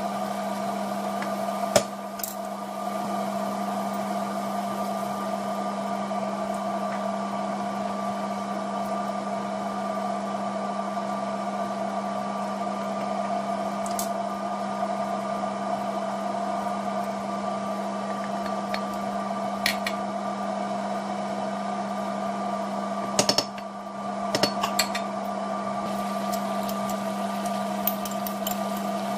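A steady electric hum from a running kitchen appliance, with several constant tones. A few short knocks and clinks of utensils against a steel pot come about two seconds in, near the middle, and a little before the end.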